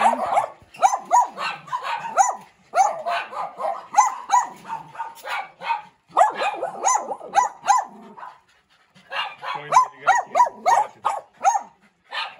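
Small dogs barking in quick runs of high-pitched yaps, several a second, with short pauses between the runs.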